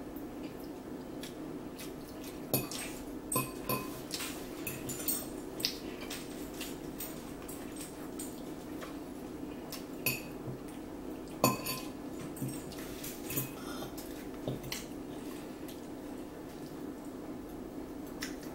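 Metal fork clinking and scraping against a plate while salad is eaten: scattered sharp clicks, the loudest about two and a half and eleven and a half seconds in, over a steady low hum.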